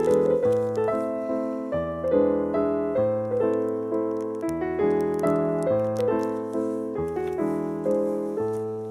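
Background piano music: struck notes and chords that fade away after each attack, changing about every half second over a low bass line.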